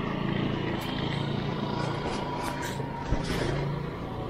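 Steady riding noise from a bike on a wet road: tyre hiss on the wet asphalt and rushing air, over a low steady hum.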